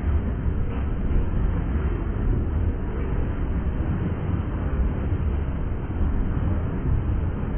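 Freight train of tank cars and autorack cars rolling past, a steady low rumble with no horn or distinct clicks.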